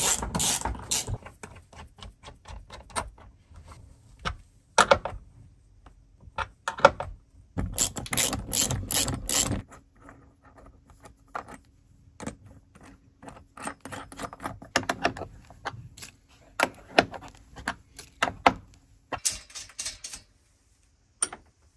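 Socket ratchet wrench clicking in quick runs as bolts are removed and tightened on the camper wall, three times: at the start, about eight seconds in, and near the end. Scattered clicks and clinks of bolts, washers and a metal MOLLE panel being handled fill the gaps.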